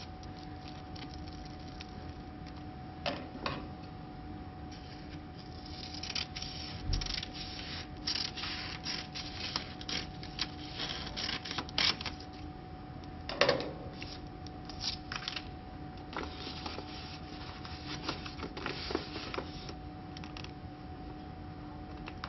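Paper label stock and its backing liner being peeled and handled on a roll: irregular rustling, crinkling and light taps, busiest through the middle with one sharper crackle about halfway, over a steady low hum.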